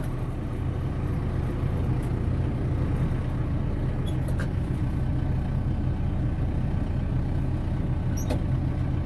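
Kubota RTV500 utility vehicle's engine running at a steady low hum while driving, with a few faint clicks over it.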